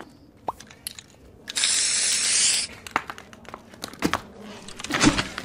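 A hissing burst of noise lasting about a second, which starts and stops abruptly, followed by a few short sharp knocks.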